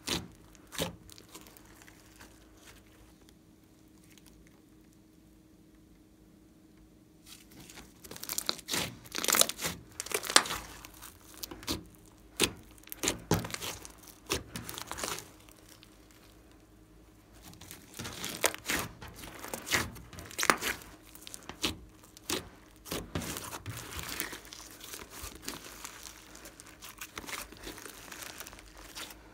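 Thick slime with clay mixed in, squished, stretched and folded by hand, giving sticky crackles and sharp clicks in clusters, with a quiet pause of a few seconds near the start.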